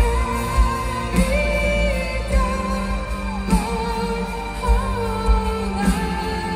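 A symphonic metal band playing live: a female lead vocalist sings long held notes into a microphone over keyboards, electric guitar and drums, with a low drum hit about every second, as heard from within the concert crowd.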